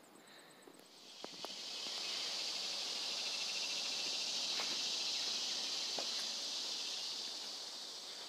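High, steady insect buzzing, most likely a cicada's call, swelling in about a second in, holding, then slowly fading near the end. A couple of light knocks sound as it begins.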